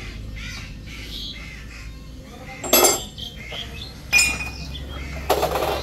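Metal parts being knocked together in a garage: three sharp metallic clanks with a high ring, the last one longer, over a steady low hum. Birds chirp in the first couple of seconds.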